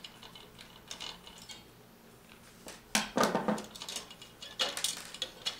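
Light clicks and clatters of small screws and a screwdriver being handled while a fan is unscrewed from a plastic graphics-card fan shroud. There are scattered ticks at first, then louder bursts of clattering about three seconds in and again near the end.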